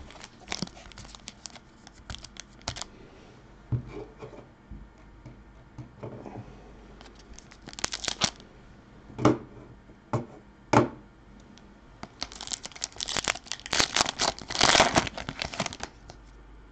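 Plastic wrapper of a hockey card pack torn open and crinkled by hand, with the cards handled and slid out. Scattered small clicks and rustles, a short crinkling burst about halfway, and the loudest, densest crinkling near the end.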